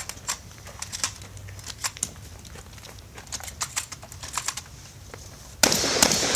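Shotgun shells being pushed one after another into a pump-action shotgun's magazine tube: a run of quick, irregular metallic clicks. About five and a half seconds in, loud shotgun fire breaks out, several shots close together with a long ringing echo.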